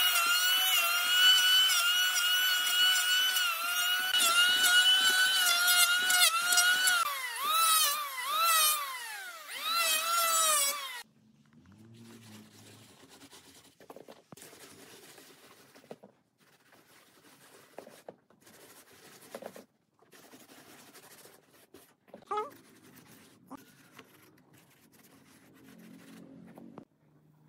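Electric hand planer running over a panel of glued wood offcuts, a steady high whine whose pitch dips and recovers several times as the blades bite, then cuts off suddenly about eleven seconds in. After it, faint rubbing and brushing of hands spreading sawdust over the planed wood.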